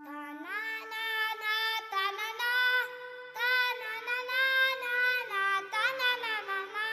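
Title music: a high voice sings a slow, wordless-sounding melody with long held notes that waver and slide, over one steady sustained note. The voice breaks off briefly about three seconds in, then carries on.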